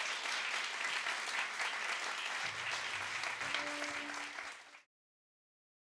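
Audience applauding at the end of a live song, a dense patter of many hands clapping that cuts off suddenly about five seconds in.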